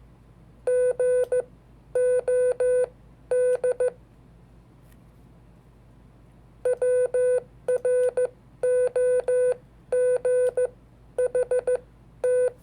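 Morse code (CW) being sent as a keyed sidetone: a steady mid-pitched beep chopped into short dots and longer dashes, forming letters in quick clusters, with a pause of about three seconds partway through.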